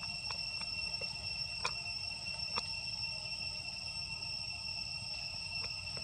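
Insects droning steadily at a high, even pitch in two tones, with a few soft clicks scattered through.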